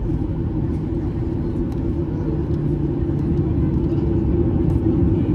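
Cabin noise of a Boeing 737-800 with its CFM56-7B engines at idle thrust on the ground: a steady low rumble with a constant hum, and faint light rattles now and then.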